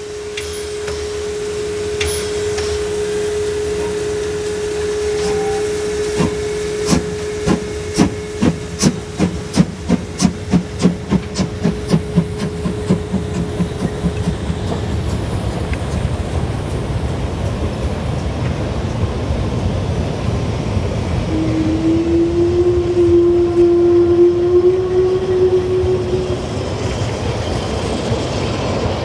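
Narrow-gauge steam locomotive pulling away with its train: the exhaust chuffs start slow and quicken to about four a second, over a hiss of steam and a held tone that stops about halfway through. The coaches then roll by with a rumbling clatter, and a drawn-out tone sounds for a few seconds near the end.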